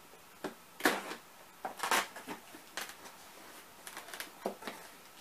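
A cardboard shipping box being cut and pulled open by hand: irregular scrapes, rustles and short rips of cardboard, the two loudest about one and two seconds in.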